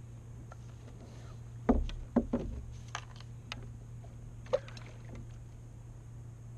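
Fishing gear knocking against a plastic kayak as the landing net and rod are handled: a few sharp knocks close together about two seconds in and one more a little past the middle, over a low steady hum.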